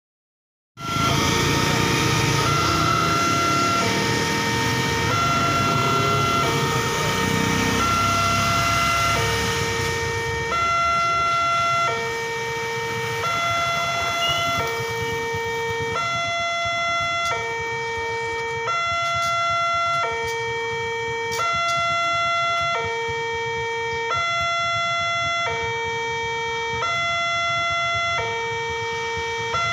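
Railway level-crossing warning alarm sounding, an electronic signal alternating steadily between two tones, each held about a second, warning that a train is coming. A broad rumble lies under it for the first ten seconds or so, then fades.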